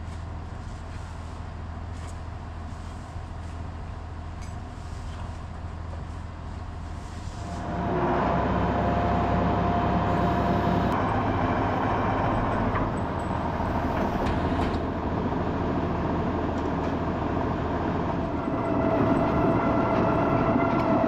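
A farm machine's engine running steadily. About eight seconds in it gets louder, and a steady whine joins it.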